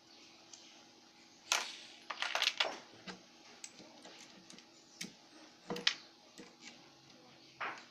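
Small loose metal valve parts from a cylinder head, the valve keepers and valves, clicking and clinking against each other as they are handled. Sharp, irregular clicks come in small clusters, the loudest about a second and a half in, around two and a half seconds in, and near six seconds in.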